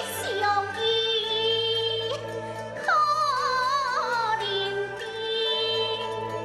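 Gezai opera music: a wavering melodic line that bends in pitch over held accompanying tones.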